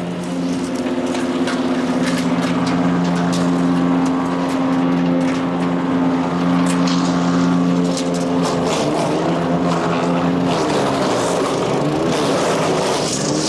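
Power King chipper shredder's Kohler CH440 14 hp single-cylinder engine running at a steady speed, with scattered sharp clicks and rattles. From about ten seconds in, its pitch starts wavering up and down.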